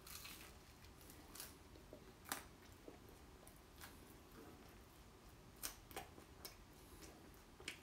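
Near silence with faint, scattered clicks and mouth noises of a man chewing a bite of French toast pizza; the sharpest click comes a little over two seconds in.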